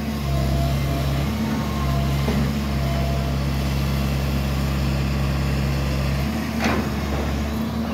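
Demolition excavator's diesel engine running steadily under load, its drone shifting a little about a second in and again near the end, with one sharp knock of the claw working debris shortly before the end.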